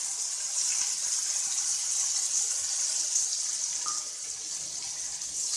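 Freshly added crushed onion sizzling in hot oil in a metal kadai, a steady hiss that eases a little about four seconds in.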